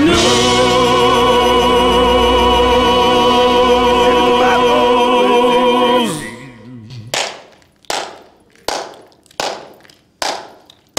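A show-tune finale: a male singer and chorus hold the last sung word, 'news', over a full band, and the chord stops about six seconds in. Then come about six sharp, echoing handclaps at a slow, even pace, roughly one every three-quarters of a second.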